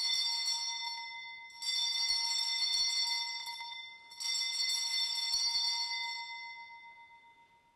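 Altar bells (Sanctus bells) rung three times at the elevation of the consecrated host. The rings are bright and come about two seconds apart, each left to ring on and fade. The last fades out near the end.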